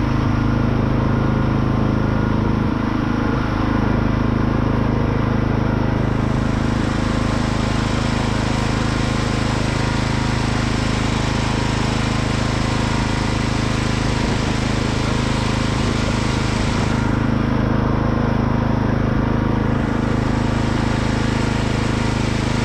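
1979 Sears GT16 lawn tractor's engine running at a steady speed while the tractor drives along a dirt track. A higher hiss joins about six seconds in, drops away around seventeen seconds and comes back near twenty.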